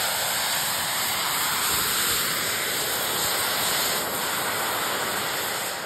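Small jet turbine engines of a JetQuad drone running with a steady, loud hiss as it hovers low to land, easing slightly about four seconds in.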